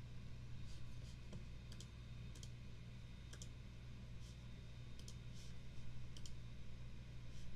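Light computer mouse clicks, about a dozen at irregular intervals, as installer dialog buttons are clicked through, over a steady low hum.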